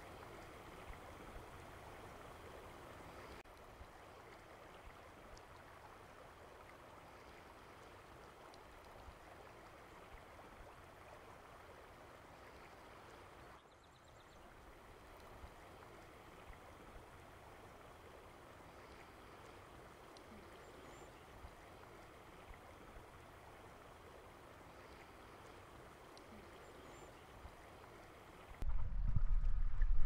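Steady rush of flowing stream water. Near the end, a much louder low rumble cuts in suddenly.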